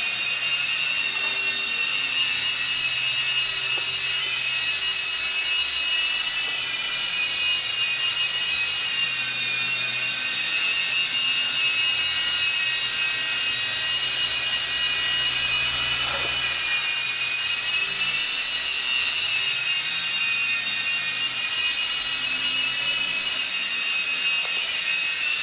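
Toy remote control helicopter's small electric motors and rotors whining steadily in flight, the high pitch wavering slightly as the throttle changes.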